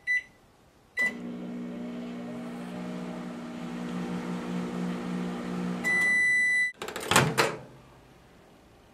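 Microwave oven started with a keypad beep, then running with a steady hum for about five seconds. A long end-of-cycle beep sounds when it finishes, followed by a clunk.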